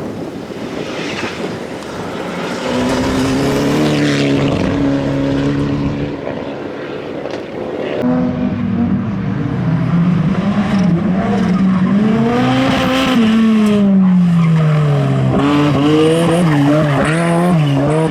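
Rally car engine revving hard on a stage, pitch climbing and dropping as the driver changes gear and lifts off. The sound changes abruptly about eight seconds in, then rises and falls again with more gear changes.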